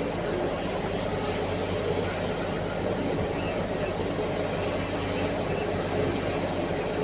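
Heavy diesel mining machinery running steadily: a large excavator and articulated dump truck at work, with a faint high whine that wavers slowly in pitch.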